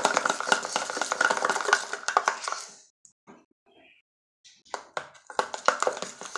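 Homemade shampoo-and-hand-soap slime being mixed in a container: a dense run of sticky, crackling clicks for nearly three seconds, a pause, then more from about five seconds in.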